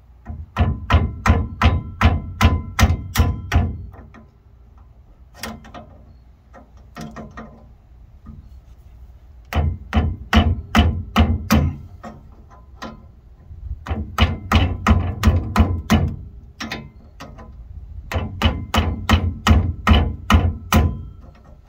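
Repeated metal-on-metal blows as a seal puller, hooked into a Nissan Frontier C200 rear axle seal, is worked to break the seal's lip loose from the axle housing. The blows come in four quick runs of about three to four a second, with a few single blows between, each with a short metallic ring.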